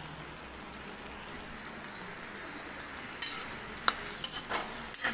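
Chopped tomatoes and onions sizzling in hot oil in a kadai. Near the end a ladle stirs them, scraping and clicking against the pan several times.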